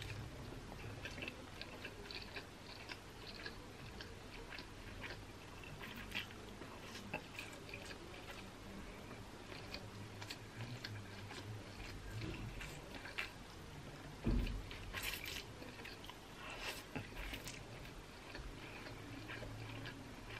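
Close-miked eating of thick stir-fried yakisoba noodles: slurping strands in from chopsticks and wet chewing, with many small mouth clicks. A single sharp thump about two-thirds of the way through, and a few louder slurps just after.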